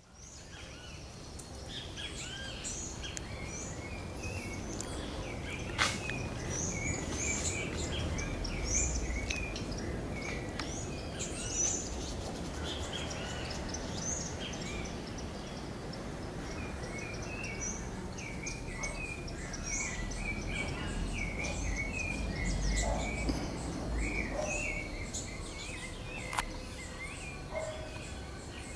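Outdoor ambience of many birds chirping and calling, short overlapping chirps repeated throughout, over a steady low rumble; a sharp click about six seconds in.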